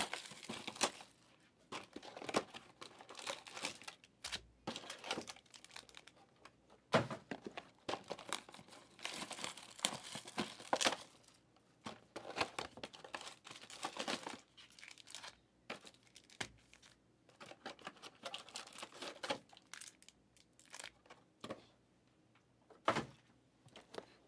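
Foil wrappers of Prizm Draft Picks trading card packs being torn open and crinkled by hand, in irregular bursts of crackling.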